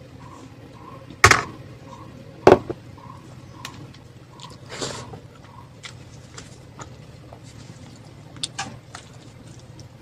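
Close-miked eating sounds: a few sharp crunches, the two loudest about one and two and a half seconds in, with quieter mouth sounds between.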